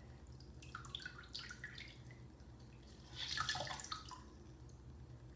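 Small wet clicks and squishes from a small squeeze tube being pressed by hand, loudest about three seconds in, over a low steady hum.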